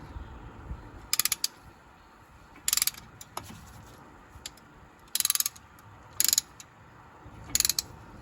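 Ratcheting brake caliper piston compressor tool being worked in short strokes, five quick runs of ratchet clicks as it pushes the caliper piston back into its bore to make room for new pads.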